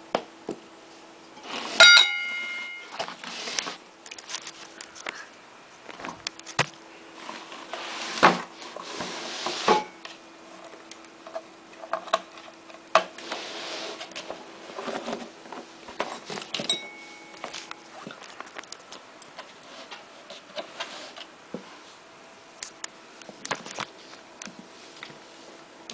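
Handling noise of clicks, knocks and rustles, with a metal alarm-bell gong touched once about two seconds in and ringing briefly, and a fainter metallic ping later. A faint steady hum runs underneath.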